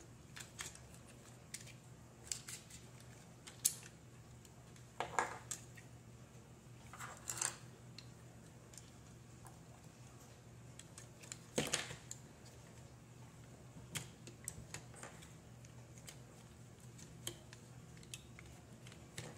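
Hands handling the plastic body of a Sparki robot and a small servo: scattered faint clicks and taps, with a few louder rustling scrapes spread through, over a faint steady hum.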